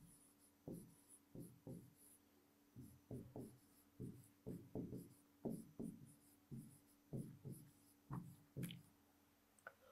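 Pen writing by hand on a board: a string of short, faint strokes and scratches, about two a second, over a faint steady hum.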